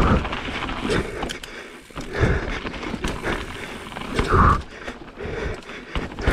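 Mountain bike descending a rough downhill trail: tyres and frame clattering over rocks and roots, with a string of heavier hits about a second apart.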